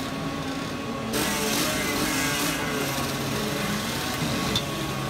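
Two-stroke kart engine running, its buzz stepping up louder about a second in.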